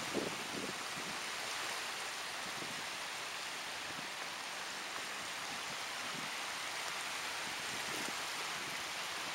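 Small sea waves washing and breaking in shallow water: a steady rush of water with soft low splashes now and then.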